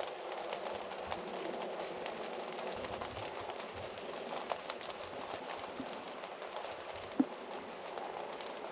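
Steady rain falling, with many small drops pattering and dripping, and one sharper drop tap about seven seconds in.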